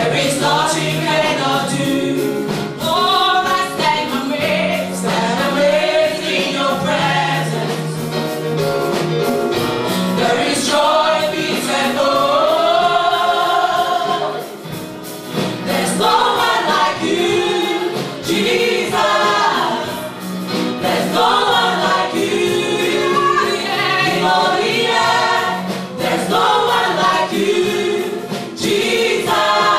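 Gospel worship music: a choir singing with instrumental accompaniment.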